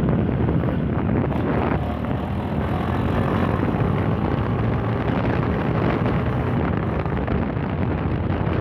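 Yamaha Fazer 150 motorcycle being ridden, its single-cylinder engine running steadily under heavy wind noise on the microphone.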